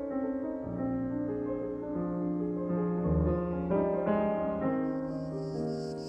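Piano music: a slow melody of sustained notes. About five seconds in, a steady high-pitched hiss joins it.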